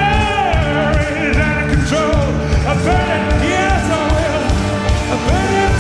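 A rock band playing live, with a male lead singer singing long, sliding notes over a steady, driving beat.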